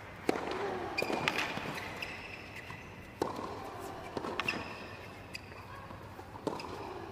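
Tennis ball struck by rackets in a rally on a hard court. It opens with the serve, and the loudest strikes come about three seconds apart, with fainter hits and shoe squeaks on the court surface between them.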